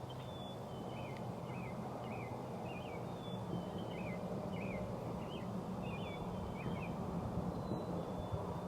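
Small birds chirping in a quick series of short, high calls, about two a second, over a steady low hum.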